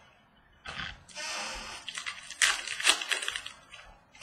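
Rustling and crinkling of trading cards and their foil pack wrapping being handled, with a few sharper crackles about two and a half to three seconds in.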